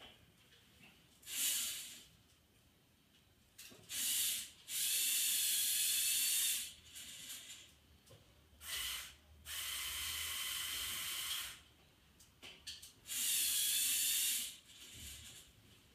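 Small electric motors and gearing of a LEGO Technic model crane whirring in a series of stop-start bursts, the longest about two seconds, as the boom is raised.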